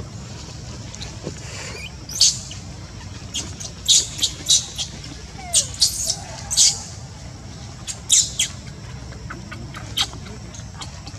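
Newborn baby monkey crying in a string of short, shrill squeals, coming in irregular bursts of one to three, over a steady low background rumble.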